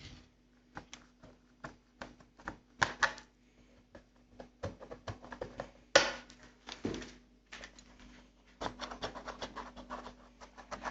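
Screwdriver and hands working out the screws that hold a semi-automatic washing machine's top housing: scattered clicks, scrapes and small knocks, with a louder clack about six seconds in.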